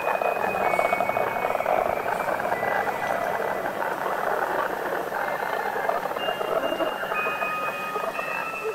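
Crackling radio-like static, used as horror sound design, with thin high electronic tones that hold and then step to new pitches. A lower tone joins them in the last couple of seconds.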